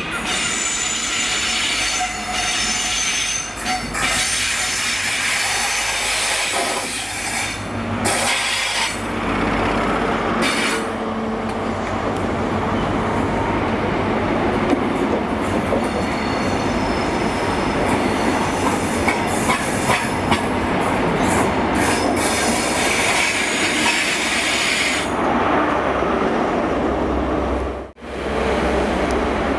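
Class 43 HST diesel train running into the station over curved track, its wheels squealing on the curves. The coaches clatter past over the rail joints. A brief break comes near the end.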